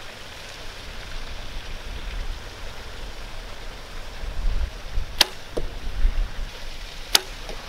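Compound bow being shot: a sharp snap as the string is released about five seconds in, then a second sharp crack about two seconds later. A steady hiss and low rumble run underneath.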